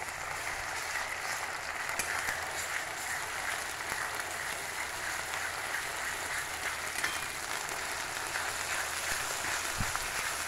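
Onion paste and fenugreek leaves sizzling in hot oil in a kadai: a steady frying hiss with fine crackling.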